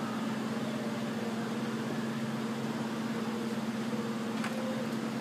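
A steady machine hum with one low held tone and fainter overtones, even in level throughout.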